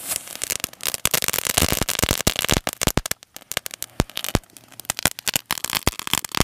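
Crackling ground-fountain firework (a chatar patar type) spraying sparks with a dense, rapid crackle that thins to scattered pops after about three seconds.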